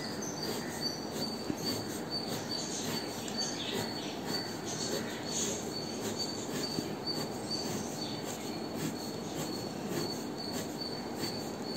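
Fine-tip pen scratching across paper in many quick short strokes, sketching the fine lines of a palm leaf. A high-pitched chirp repeats a few times a second in the background.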